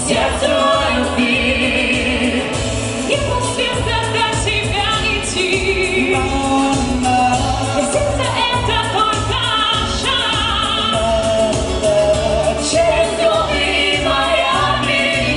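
A pop song sung live by a small vocal group, a young male singer and female singers taking turns and singing together into handheld microphones, over accompanying music with a steady, repeating bass line.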